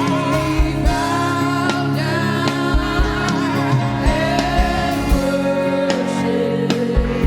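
Live gospel praise and worship music: voices singing a slow melody over sustained keyboard chords, with a steady drum beat.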